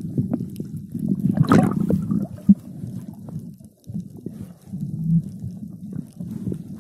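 Muffled rumbling and rubbing against the camera's covered microphone, with scattered small knocks.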